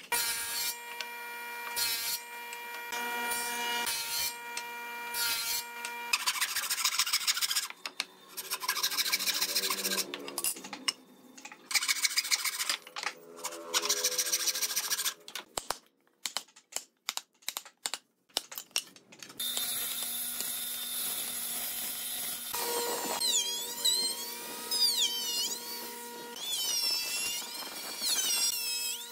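Hand frame saw rasping through a wooden board in quick repeated strokes. About two-thirds of the way through, a handheld electric router takes over, running with a steady whine whose high pitch wavers as it cuts the wood.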